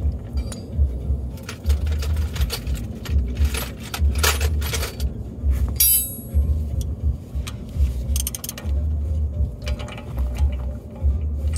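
Metal hand tools clinking and clanking, with one ringing metal clink about six seconds in, over a low, uneven rumble.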